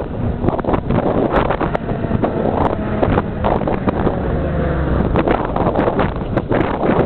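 Strong wind buffeting the camcorder microphone in uneven gusts, with a low engine drone beneath it whose pitch slides slowly down in the middle.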